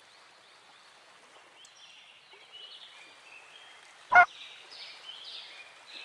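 A duck quacking once, short and loud, about four seconds in, over a faint background with soft high chirps.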